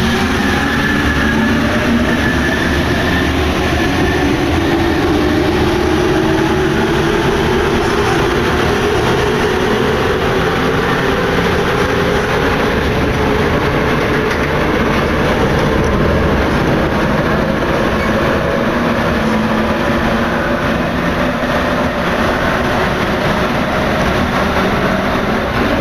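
Paris Métro MP89CA rubber-tyred train running, heard from inside the car: a steady, loud rolling rumble with a motor whine that slowly shifts in pitch.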